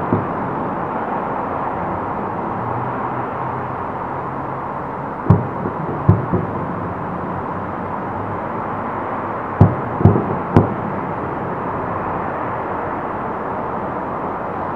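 Distant aerial firework shells bursting: sharp booms in small clusters, one at the start, a few about five to six seconds in and three more around ten seconds in, over a steady background hiss.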